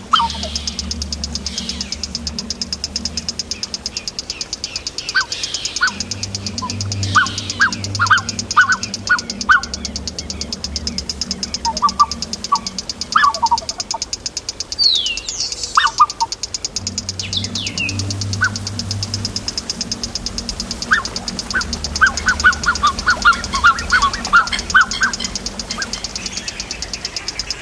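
Wetland soundscape composition built from Valdivia field recordings. A continuous high, fast-pulsing trill runs under short series of repeated bird chirps and a few gliding whistles, over a low hum that changes in steps every few seconds.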